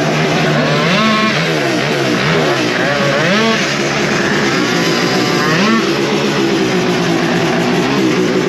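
Small two-stroke race scooter engine running on the start line and being revved up and dropped back several times, a rising and falling rev every second or two. The blipping keeps the two-stroke from loading up.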